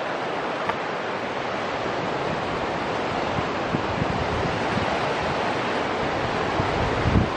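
Steady rush of a river running over rock rapids, with wind buffeting the microphone in low gusts that pick up near the end.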